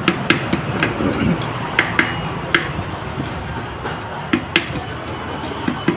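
Hand tools clinking on a motorcycle engine's crankcase while a bolt is turned with a socket on an extension: sharp, irregular metal clinks, often in pairs.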